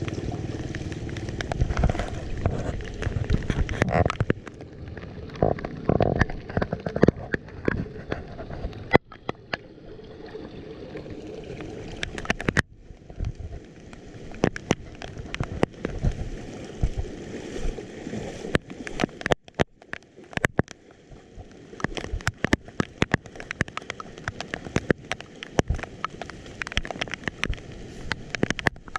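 Water gurgling and sloshing around a leaf-clogged street drain, with many sharp clicks and knocks throughout. A low rumble fades out over the first few seconds.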